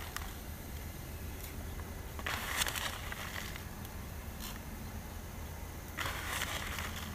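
Crinkling of a plastic coffee packet being handled and opened, with coffee tipped out of it into a mug; two louder bouts of crinkling, about two seconds in and near the end, with a few small ticks between.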